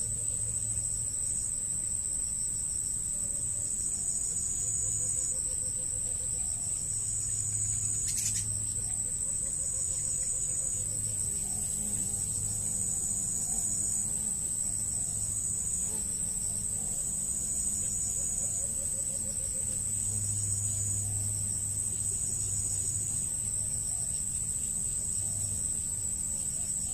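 Insects chirring in a steady, high-pitched drone, with a shorter pulsing trill just below it that repeats every second or so. A faint click comes about eight seconds in.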